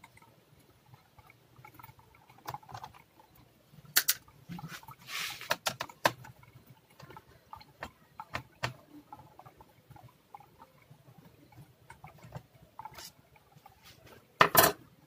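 Scattered small clicks, taps and scrapes of a screwdriver and fingers on the plastic bottom case of an Asus A43S laptop as its screws are taken out, with a short scraping noise about five seconds in and a louder cluster of knocks a little before the end.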